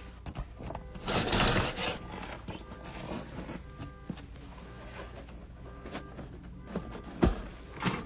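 A car alarm sounding in the distance, faint steady tones that switch pitch every so often. A loud rustle about a second in and a sharp knock near the end.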